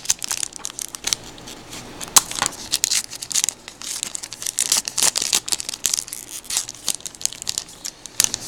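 A trading-card pack wrapper being torn open and crinkled by hand: a run of irregular sharp crackles and tearing.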